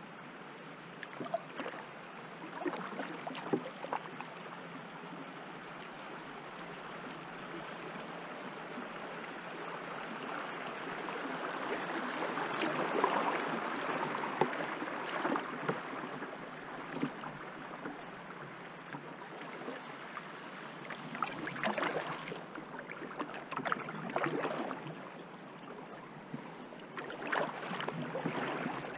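Water rushing and rippling around a kayak on a shallow, swift river, swelling louder about halfway through, with a few short splashes of paddle strokes near the start and near the end.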